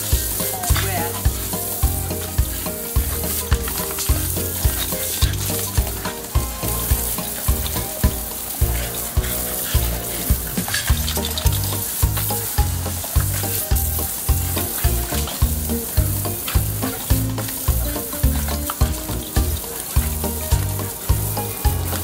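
Background music with a steady bass beat, over the continuous hiss of a garden hose spraying water.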